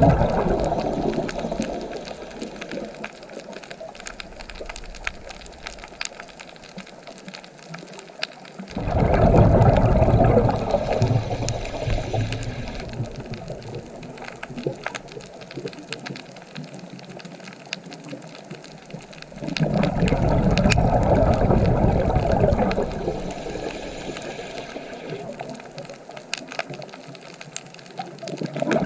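Ocean waves breaking and washing up the shore. A loud surge comes about every ten seconds and fades into a softer hiss before the next.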